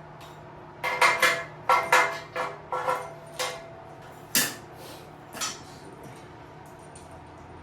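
Metal tools and bike parts clinking and clanking during disassembly: about ten sharp knocks in quick succession, then a couple of single ones, over a steady low hum.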